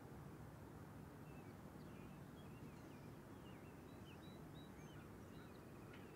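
Faint outdoor ambience: small birds chirping now and then with short high calls over a low, steady rumble.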